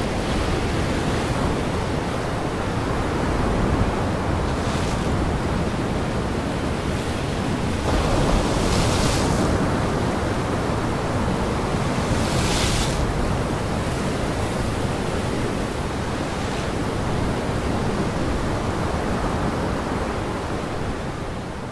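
Wind-driven waves breaking on the shore with wind blowing: a steady rushing noise, with louder hissing crashes about five, nine and twelve seconds in. It fades out at the very end.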